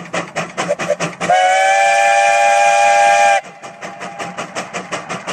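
Steam traction engine chuffing with a quick, even exhaust beat as it works up a steep slope. About a second in, its steam whistle blows a loud, steady chord of several tones for about two seconds, then the chuffing carries on.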